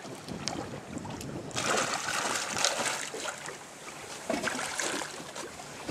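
Water splashing and churning at the surface as a hooked fish thrashes there, a hissing rush of spray that starts suddenly about a second and a half in and runs for a couple of seconds.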